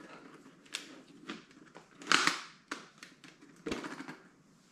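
Handling noise from a Schuberth C5 modular motorcycle helmet: a handful of sharp plastic clicks and short scrapes as its chin-bar camera mount and visor are adjusted, the loudest about two seconds in.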